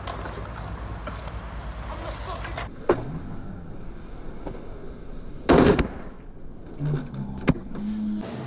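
Skateboard on concrete: a sharp pop-like click, then a loud, heavy slap of the board landing about five and a half seconds in, and another sharp click near the end. Before that comes a steady low rumble.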